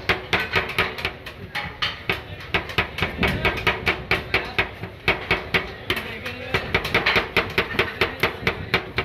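Two metal spatulas chopping rapidly on a chilled stainless-steel rolled-ice-cream pan, a fast even clacking of about five to six strikes a second with a couple of short lulls, as chocolate-coconut bar pieces are chopped into the cream base.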